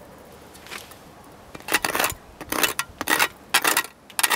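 A metal scribe scratching marks on a sheet of aluminum roof flashing that lies on asphalt shingles, in about six short scrapes, the first one faint.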